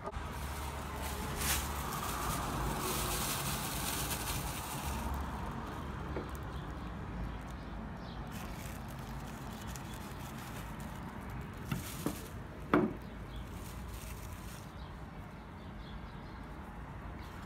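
Baked potato chips and a plastic bag rustling and crackling as they are handled, then a few light knocks, the loudest about 13 seconds in, as a small glass bowl and a spice jar are handled.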